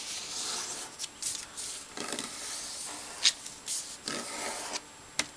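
Sheet of construction paper rustling and sliding against a tabletop as hands fold and smooth it flat, with a few brief sharp ticks.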